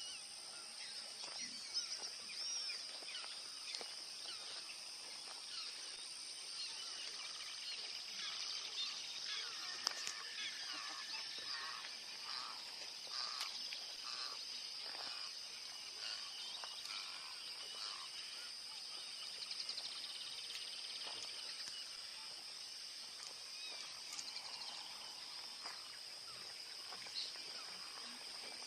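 Many wild birds chirping and calling over a steady, high-pitched insect drone in wetland.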